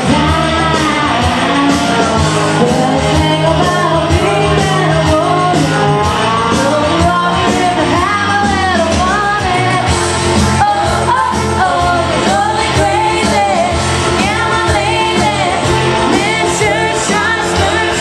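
A woman singing karaoke into a handheld microphone over a backing track with a steady beat.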